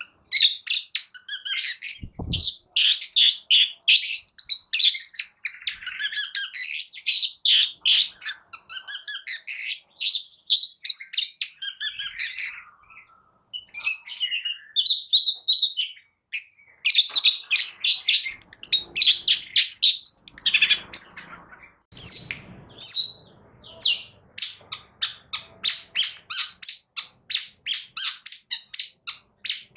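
Long-tailed shrike (cendet) singing a fast, varied, chattering song of high notes, breaking off briefly twice near the middle; over the last third it becomes a rapid run of repeated sharp notes, several a second. A short low thump sounds about two seconds in.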